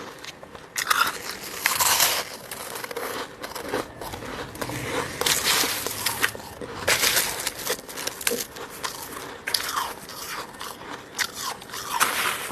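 Fluffy freezer frost being bitten and chewed up close, crisp crunching in a run of irregular bites.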